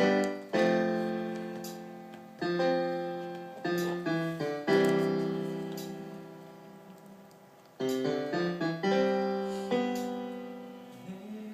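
Piano playing slow chords, each struck and left to ring and fade before the next, about six in all.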